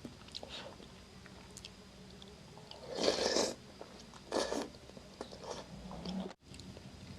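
Close-miked eating of instant ramyun noodle soup: chewing with small mouth clicks and two louder bursts about three and four and a half seconds in. The sound cuts out briefly near the end.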